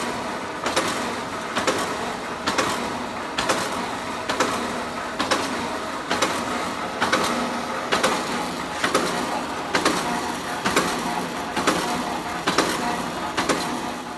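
Chicken cutting machine running, with a steady mechanical hum and a sharp chopping knock repeating evenly about once a second.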